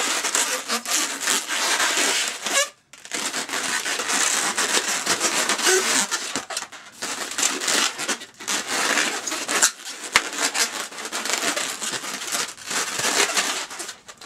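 Inflated latex twisting balloons rubbing and squeaking against each other and the hands as they are twisted and held together: a steady, crackly rubbing that stops briefly about three seconds in and again near ten seconds.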